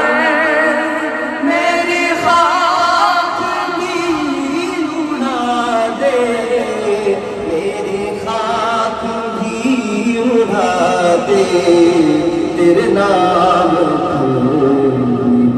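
Man singing a devotional Urdu kalam into a handheld microphone, holding long, wavering, ornamented notes.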